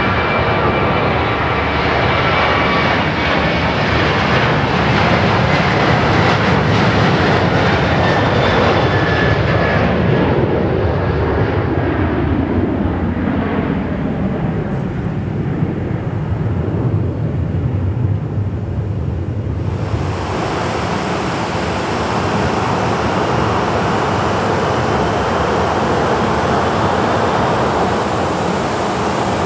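Boeing 737 twin turbofans at takeoff power: a loud jet roar with whining tones as the airliner rolls and climbs away, the tones sweeping downward in pitch as it goes. About two-thirds through it cuts abruptly to a steady jet hiss with a thin high whine from a Boeing 737-800 on the ground.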